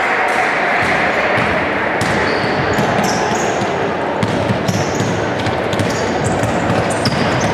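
Basketball game on a wooden court in a large hall: short high sneaker squeaks, the ball bouncing, and a steady background of voices.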